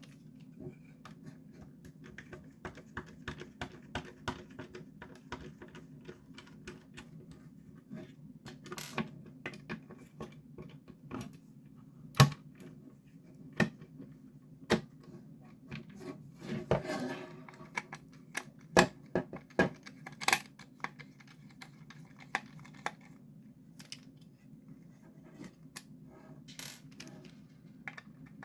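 Irregular clicks, taps and light scrapes of a Phillips screwdriver and plastic speaker parts being handled, with a few louder knocks, over a steady low hum.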